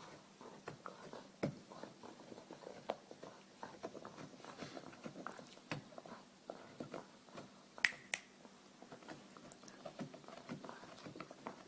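Dog chewing on a bone: scattered small clicks and taps, with one sharper click about eight seconds in.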